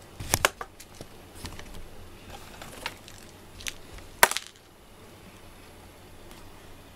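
A handful of short, sharp clicks and knocks at uneven gaps. The loudest is a quick double knock about four seconds in, followed by a low steady background.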